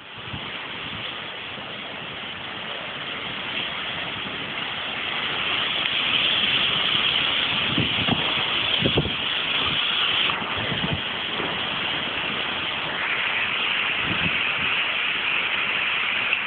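Heavy rain pouring on rooftops in a windy summer thunderstorm, a steady hiss that grows louder about five seconds in, with a few short low bumps.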